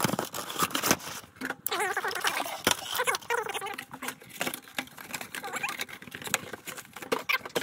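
Clear plastic blister packaging of a toy figure being handled and pried open by hand: irregular crackles and clicks. A brief voice-like sound comes in the middle.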